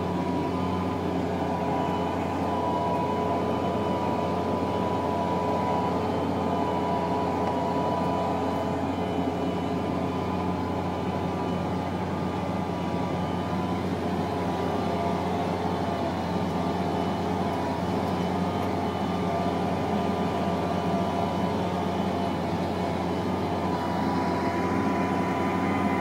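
Challenger MT765C rubber-tracked tractor's diesel engine running steadily under load while pulling a plough, heard from inside the cab: a low, even drone with a steady high whine over it.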